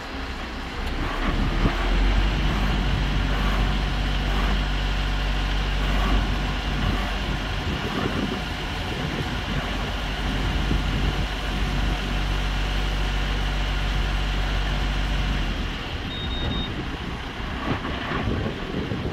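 Heavy crane truck's diesel engine running steadily while its loader crane handles a cabin cruiser, dropping away about three-quarters of the way through.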